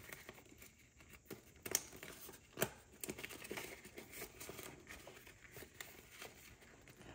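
Faint crinkling and handling of clear plastic zippered cash envelopes being worked into a binder, with a few soft clicks and taps.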